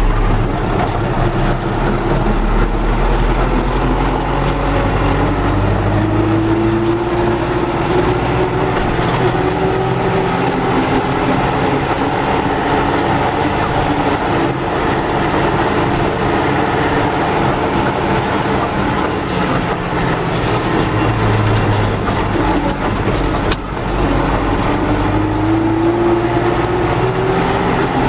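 MTZ tractor's diesel engine and transmission running as the tractor drives, with a whine that rises in pitch as it speeds up, early on and again near the end. The rear axle runs without a hum after its repair.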